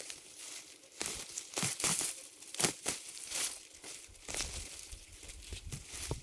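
Irregular rustling and crackling of dry leaves or plant material being handled, with frequent short crinkles.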